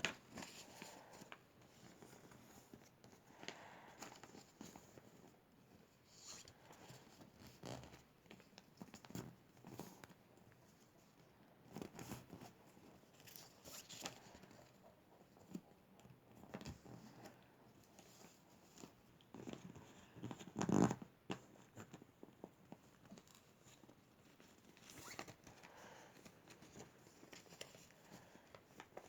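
Hands working with paper craft materials: intermittent quiet rustling, tearing and scraping, with a louder short knock about two-thirds of the way through.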